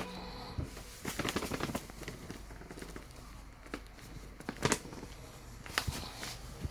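Scattered light knocks and clicks, a small cluster about a second in and then single ones every second or so, against a faint background.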